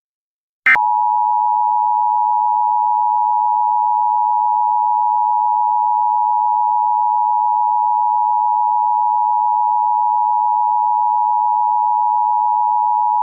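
Emergency Alert System attention tone: a single steady electronic tone of about 1 kHz. It starts a little under a second in with a short blip and then holds unchanged, signalling that an emergency alert message is about to be read.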